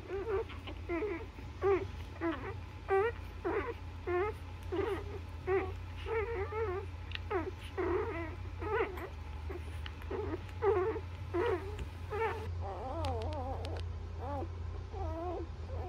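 Newborn Labrador puppies squeaking and whimpering while nursing on their mother: a string of short, high, wavering squeaks, several close together at times. A steady low hum runs underneath.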